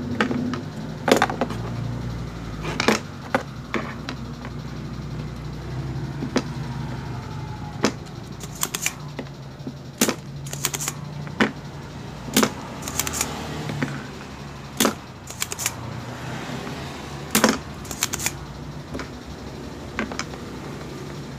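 Scattered sharp clicks and snaps of a spring-loaded desoldering pump being cocked and fired at the solder joints of a power-supply circuit board while a burnt rectifier diode is desoldered, with the board and tools knocking on a wooden bench. A low steady hum runs underneath.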